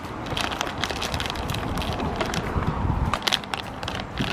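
Crackling, crinkling plastic packaging being handled and torn open to get a squishy toy out, in many small irregular crackles.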